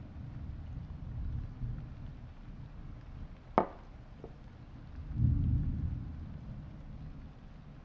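Low, thunder-like rumble that swells a little past the midpoint. A single sharp knock cuts through about three and a half seconds in, followed by a fainter tick.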